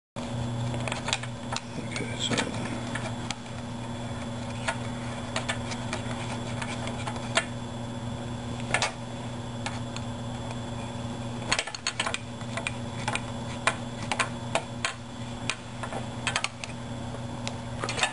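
Scattered small clicks and taps of plywood parts being handled and a small screw being driven with a screwdriver, some in quick clusters, over a steady electrical hum.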